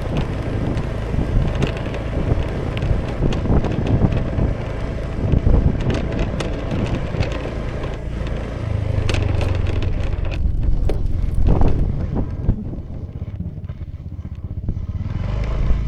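Honda Vision scooter's small single-cylinder engine running under way, with road and wind noise on the camera microphone and scattered clicks and rattles. The engine eases off about twelve seconds in and picks up again near the end.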